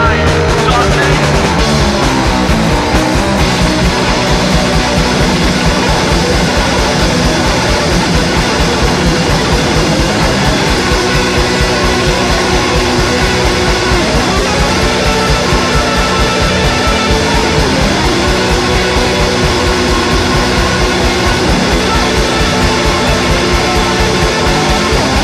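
Punk rock song recording: electric guitar, bass and drums playing loud and steady at a driving pace.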